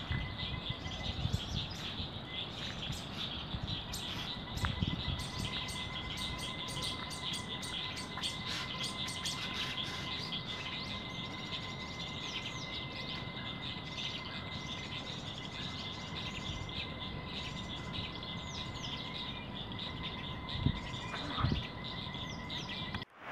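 Many small birds chirping and twittering in quick, short notes over a faint steady hiss, with a thin steady tone underneath. Two soft thumps near the end.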